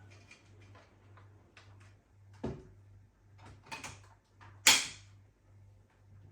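Parts of a cordless stick vacuum being handled: light clicks and taps, a knock about two and a half seconds in, and a louder sharp clack about four and a half seconds in.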